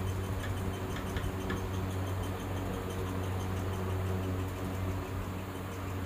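Steady low hum with faint, quick, regular ticking over it.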